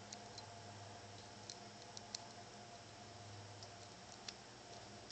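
Faint scattered ticks of a small steel set screw and fingers on the metal flex joint as the screw is started by hand, over a low steady hum.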